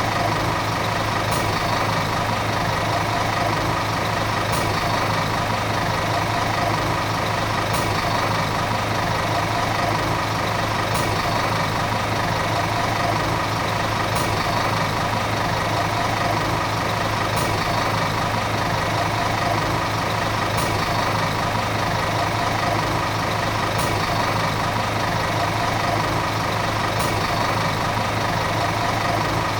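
Volvo city bus diesel engine running steadily at an unchanging speed, a constant hum with no revving, and a faint tick about every three seconds.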